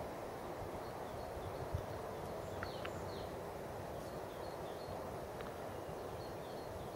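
Steady distant rumble of outdoor background noise, with small birds chirping over it in short high notes, two louder chirps a little under halfway through.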